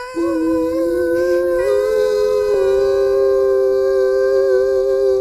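Two singing voices hold one long note together in harmony at the close of a sung line. The lower voice steps up in pitch twice, and the upper voice stays steady.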